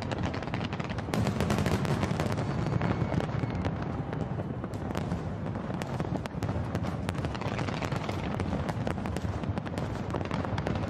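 Aerial fireworks going off in rapid succession: a dense stream of sharp pops and crackles over a continuous low rumble of bursting shells.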